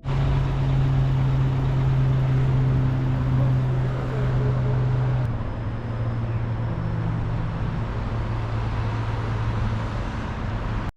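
Vehicle running steadily, with a strong low hum and rumbling noise; the hum steps down a little in pitch about five seconds in.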